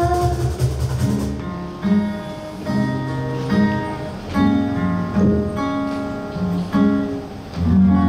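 Acoustic guitar playing an instrumental passage of picked notes and chords, with no singing.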